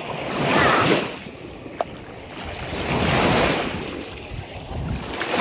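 Small lake waves washing up onto a sandy shore, swelling and fading about every two and a half seconds. A single brief click about two seconds in.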